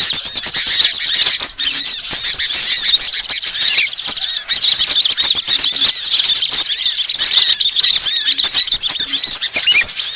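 A dense, unbroken chorus of many small songbirds' high, rapid chirps and squeaky twitters, all overlapping: a layered bird-lure (pikat) recording of small-bird calls.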